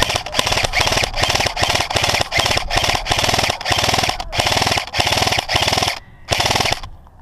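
Airsoft electric gun firing on full auto in about a dozen short bursts of rapid clicking, each a third to half a second long. There is a brief pause before a last burst near the end.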